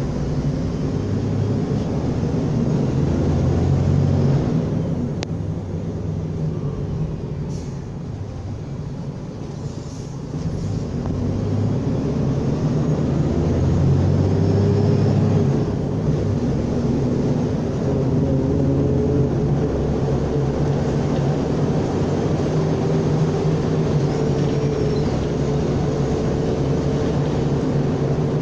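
Mercedes-Benz O500U city bus's diesel engine and automatic transmission under way. The engine note eases off and quiets for a few seconds, pulls harder again about eleven seconds in, drops back a little a few seconds later and then runs on steadily.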